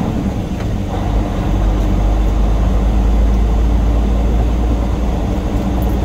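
Semi truck's diesel engine running, a steady low rumble that grows louder about a second in as the truck is driven.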